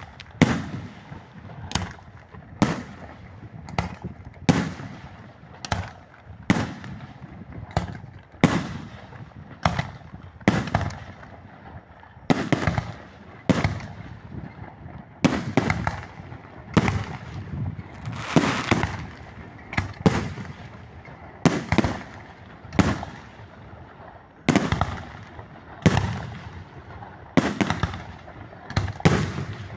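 Fireworks bursting in steady succession, about one sharp bang a second, each followed by an echoing tail.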